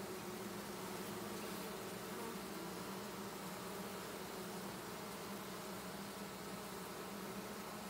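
A freshly captured honey bee swarm buzzing: a steady, even hum of many bees.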